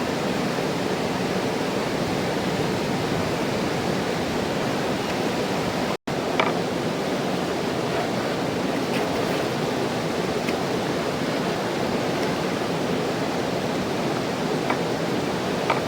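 Mountain river rushing steadily, an even wash of water noise that cuts out for an instant about six seconds in, with a few faint clicks over it.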